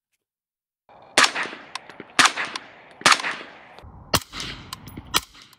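Suppressed 5.56 rifle with a PTR Vent 3 suppressor firing three shots about a second apart, each a sharp crack with a trailing echo. Two more shots follow about a second apart, sounding deeper and duller.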